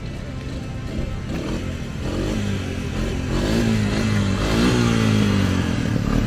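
Small engine of a vintage ATC three-wheeler revving up and down while the rider works the throttle to hold a slow wheelie; its pitch rises and falls and it grows louder over the seconds. Music plays underneath.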